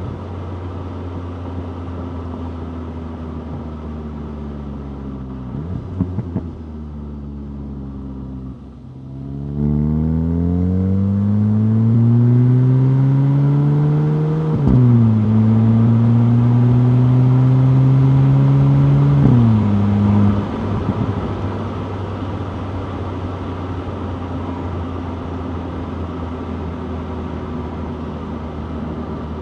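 2025 VW Golf GTI 8.5's turbocharged 2.0-litre four-cylinder engine, first running steadily at low revs. About a third of the way in it pulls hard with rising pitch, drops sharply on an upshift, climbs again and drops on a second upshift. It then settles back to steady cruising.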